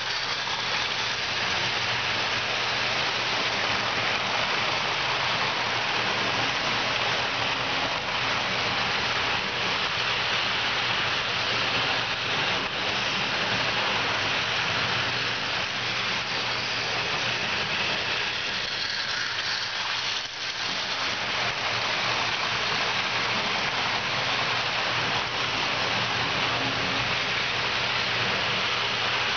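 Model trains running on the layout: a steady rolling hiss of wheels on rails with the low hum of the motors.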